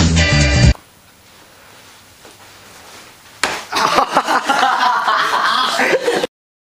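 Upbeat background music cuts off abruptly, leaving faint room noise; about three and a half seconds in, a breakdancer falls onto a carpeted floor with a sudden thump and people's voices break out loudly, all cutting off sharply near the end.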